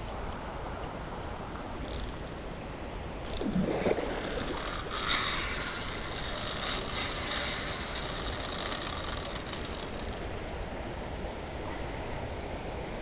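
Spinning reel working as a big Siamese carp is played: a run of rapid mechanical clicking from about five seconds in to about ten, over a steady hiss. A brief rising sound comes just before, about four seconds in, the loudest moment.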